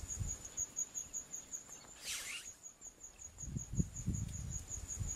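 Insects chirping in a steady, rapid high-pitched pulse, with a single falling whistle about two seconds in and some low rumbles and knocks in the second half.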